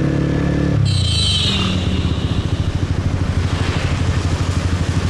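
Motorcycle engine running while riding. About a second in its steady note drops as the throttle is eased off, with a brief hiss at the same moment. It then runs on at a lower, rapidly pulsing note.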